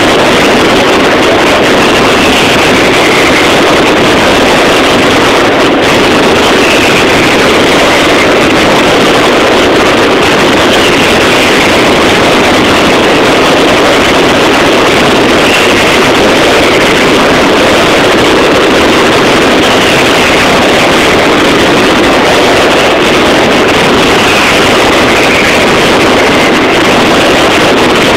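Mascletà firecracker barrage: a dense, continuous din of explosions, so loud that it overloads the phone's microphone into a steady, distorted roar with no separate bangs.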